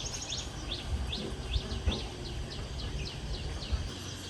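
A bird calling a quick series of short, sharp notes, each falling in pitch, about three a second, fading out near the end, over a low rumble.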